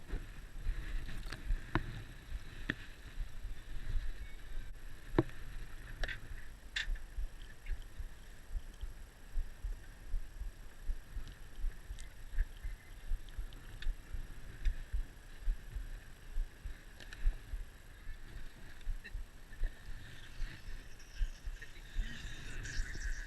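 Water slapping and lapping against the hull of an anchored small boat, an uneven low thumping, with a few light knocks scattered through.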